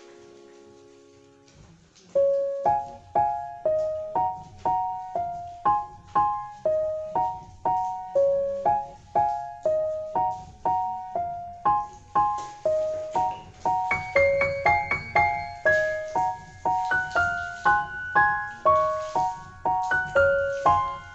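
Background piano music: a soft fading chord, then from about two seconds in a gentle repeating piano melody of evenly spaced notes, rising into a higher register about two-thirds of the way through.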